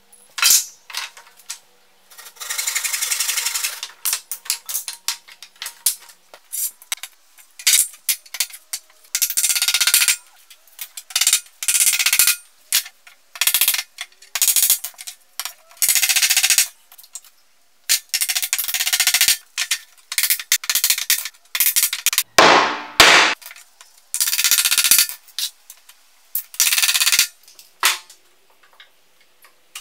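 Hammer strikes driving nails into pallet boards, broken up by short bursts of harsh, rasping noise a second or two long, with many abrupt starts and stops.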